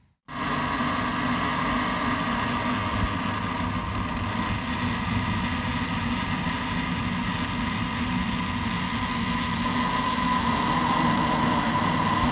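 Steady mechanical hum of a running engine or machine, with several held tones over a rough noise, cutting in suddenly just after the start and holding an even level.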